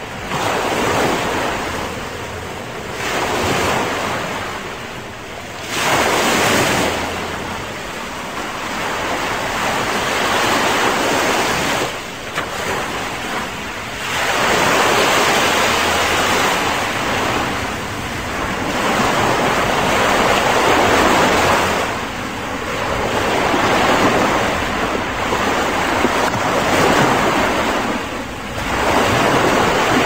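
Small waves breaking and washing up a sandy beach: a steady surf noise that swells and eases every few seconds as each wave comes in.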